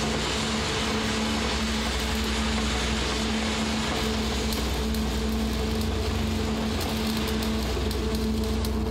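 Steady industrial machinery drone: a deep rumble under a constant low hum and a wash of mechanical noise, heavy workshop machinery running without pause.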